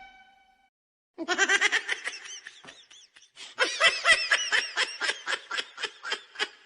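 Laughing sound effect: two bouts of rapid, high-pitched laughter, several bursts a second. The first starts about a second in and the second just past the middle. A horn's fading tail is heard at the very start.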